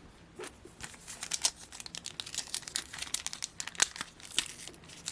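Foil trading-card pack wrapper crinkling and being torn open by hand, a run of irregular sharp crackles.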